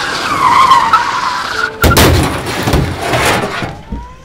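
Car tyres screeching in a skid, cut off about two seconds in by a sudden loud noise that dies away over a second and a half; a siren starts to rise near the end.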